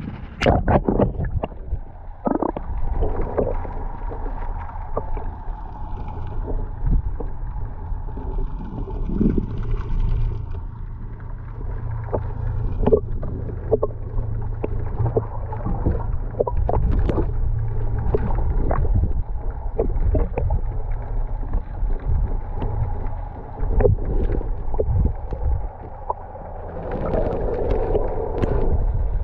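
Underwater sound picked up by a submerged action camera: a steady low, muffled rumble of water against the housing, with many scattered short clicks and knocks and a faint steady hum.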